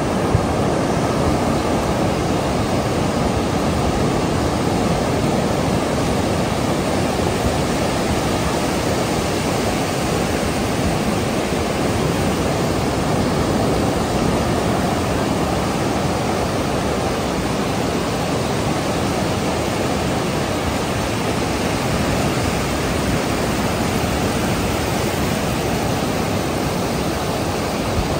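Ocean surf breaking and washing up a sandy beach: a steady, loud rushing noise.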